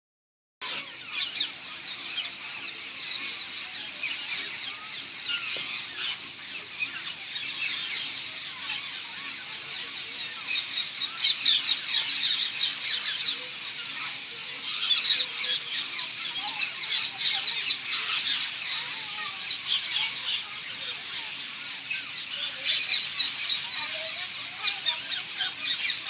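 A flock of parakeets calling together in a tree: a dense, continuous chorus of many overlapping shrill squawks and chirps.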